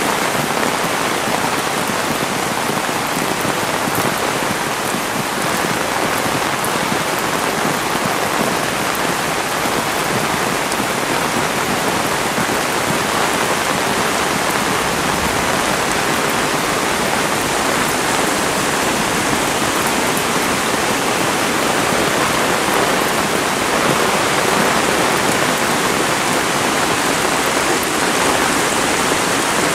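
Heavy rain falling hard and steadily, an even, unbroken hiss of downpour.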